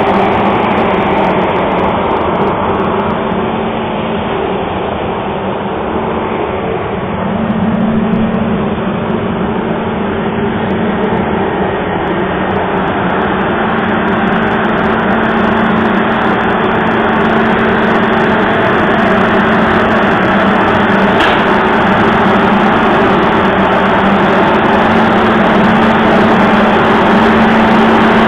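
TECO corn grain dryer running, its big fans giving a loud, steady rush of air over a constant low hum.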